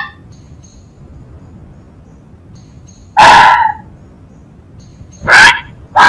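A fox giving short, harsh barks: one about three seconds in, another about five seconds in, and a third starting right at the end, over a low background hiss.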